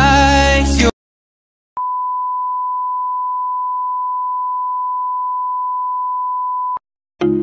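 A song with singing cuts off about a second in; after a short silence the colour-bars test tone sounds, one steady pure beep held for about five seconds that stops abruptly.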